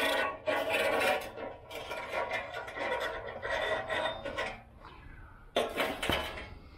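Steel coil fork spring being drawn out of a Suzuki DR650 front fork tube, its coils scraping along the inside of the tube in a series of rough pulls. A louder, sharper scrape comes about five and a half seconds in, as the spring clears the tube.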